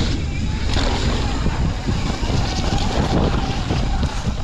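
Mountain bike running fast down a muddy dirt trail: steady wind buffeting the microphone, with tyre noise and scattered knocks from the bike over bumps.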